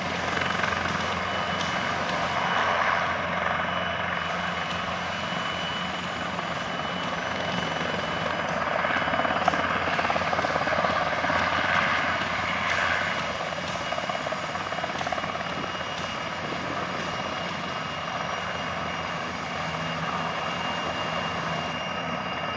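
Airbus H225M Caracal military helicopter hovering low, its twin Turboméca Makila turboshafts and main rotor running steadily. The rotor beats rapidly under a steady high turbine whine. A second military helicopter hovers alongside near the start.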